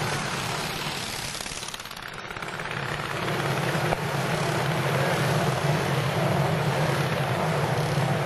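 Pre-1910 antique racing motorcycle engines running hard on a dirt track. The sound dips as a bike passes close and moves away about two seconds in, then rises again as more bikes come round.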